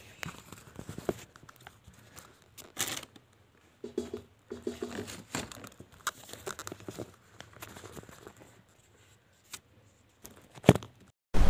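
Handling noise from a phone camera being set up by hand: fingers rubbing and tapping close to the microphone, with scattered clicks and rustles. A short, loud burst of rubbing noise comes near the end.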